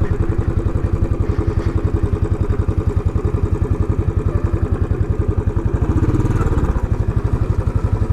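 Royal Enfield Classic 500's single-cylinder four-stroke engine idling with a steady, even beat, quickening slightly about six seconds in.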